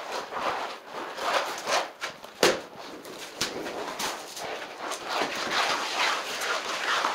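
Repeated rubbing and rustling as a cloth wipes the floor and a sheet of vinyl flooring is shifted, with a sharp knock about two and a half seconds in and a couple of lighter clicks after it.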